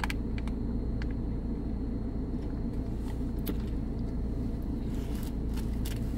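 Steady low rumble inside a parked car, with scattered small clicks of sipping from a foil drink pouch and chewing.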